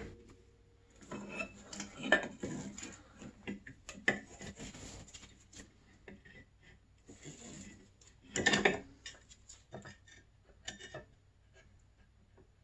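Snowmobile flywheel being worked onto the crankshaft over the stator by gloved hands: scattered metal rubbing and small clinks as it is lined up with the key and seated, the loudest of them about eight and a half seconds in.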